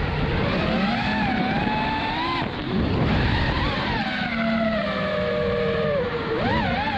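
FPV freestyle quadcopter's brushless motors and propellers, heard from the onboard camera: a whine whose pitch climbs and drops with the throttle over a rush of air. There is a brief dip about two and a half seconds in, a long fall in pitch after that, and a quick up-and-down wobble near the end.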